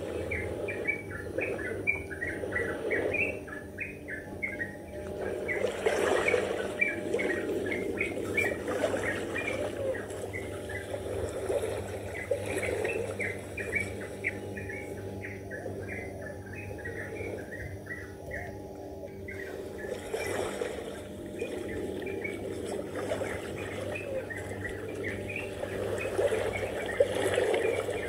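Many small birds chirping in quick, repeated short notes, with a pause about two-thirds of the way through. A steady low background noise runs underneath.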